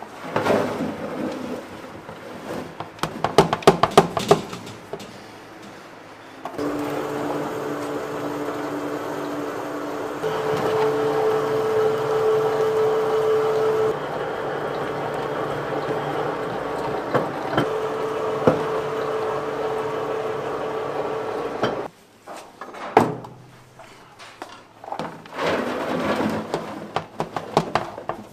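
Knocks and clatter as a bowl is emptied into a steel machine, then an electric food-processing machine runs with a steady hum for about fifteen seconds, its pitch stepping up twice, before it cuts off suddenly, followed by more scattered knocking.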